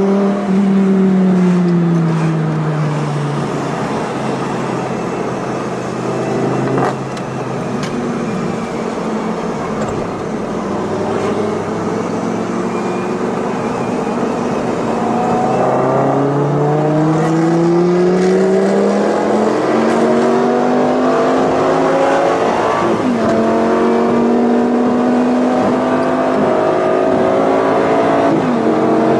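High-performance car engines on the road, a straight-piped Mercedes-Benz SLS AMG and the chasing Lamborghini Gallardo. Revs fall away at first, and a sharp knock comes about a quarter of the way in. From about halfway the revs climb hard under acceleration, with two quick upshifts later on.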